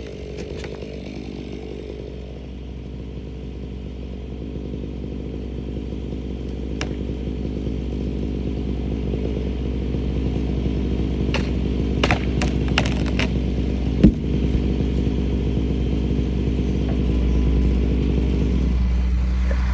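Chainsaw engine idling steadily after a cut. It is briefly joined by a few light clicks and, about two-thirds of the way in, one sharp knock.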